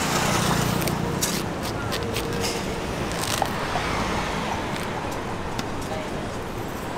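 A long knife cutting through a watermelon, with a few short, sharp crunching clicks as the blade goes through the rind, over steady road traffic.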